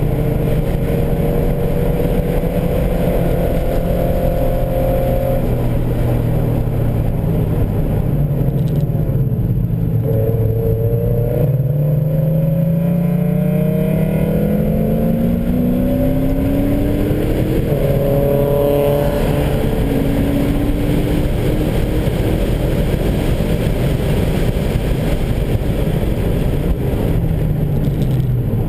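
BMW E39 M5's V8 engine heard from inside the cabin at speed. It runs fairly steady for the first several seconds, then the revs climb under acceleration from about ten seconds in, drop once at about eighteen seconds, and climb again before easing off near the end.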